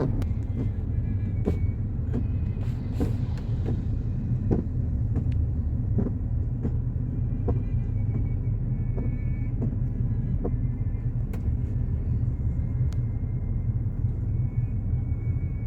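Car driving, heard from inside the cabin: a steady low road and engine rumble with scattered light ticks.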